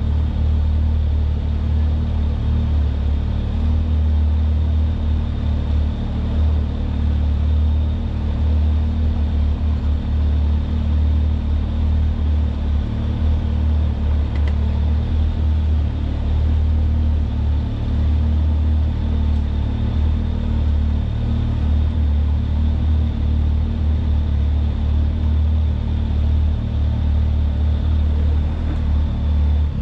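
Side-by-side UTV engine running steadily under way on a trail, a continuous low engine sound with no revving or sudden changes.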